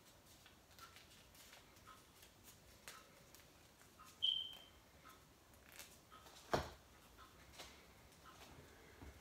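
Faint rustling and soft clicks of a folded slip of paper being unfolded by hand. A short high squeak comes about four seconds in, and a single sharp tap about six and a half seconds in.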